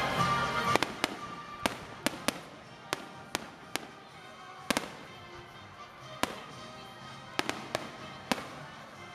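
Aerial fireworks bursting overhead: about fifteen sharp bangs at uneven intervals, some in quick pairs, over a steady background wash of noise.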